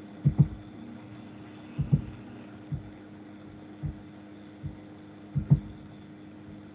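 Soft low thumps at irregular intervals, several in quick pairs, over a steady low hum.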